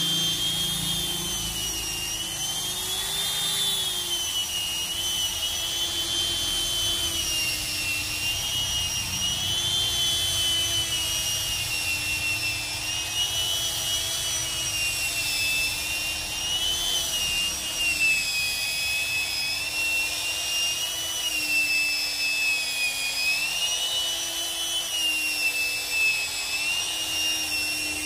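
Electric angle grinder fitted with a sanding disc on a rubber backing pad, running continuously as it sands a glued-up wooden board surface. Its high motor whine wavers slowly up and down in pitch as the load on the disc changes.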